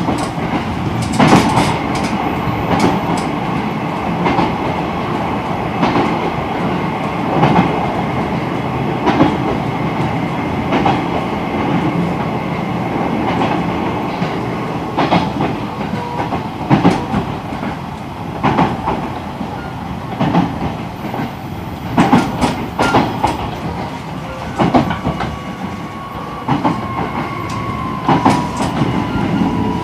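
E129-series electric train running, heard from inside the car: steady wheel and track noise with repeated clacks over rail joints, some in quick clusters. Near the end a faint whine of the Toyo IGBT VVVF inverter sets in and falls slowly in pitch as the train begins to slow.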